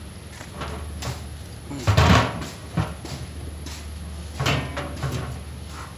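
Clunks and knocks of a brake caliper and its new piston and rubber dust boot being handled and pressed into place. The heaviest clunk comes about two seconds in, followed by a few lighter knocks.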